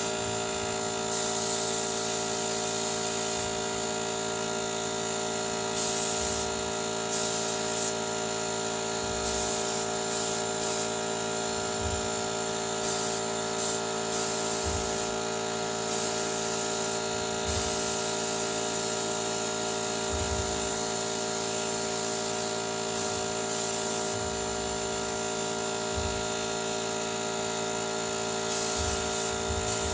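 Motomil 24-litre air compressor running with a steady motor hum, with short irregular bursts of hissing and a few low thumps.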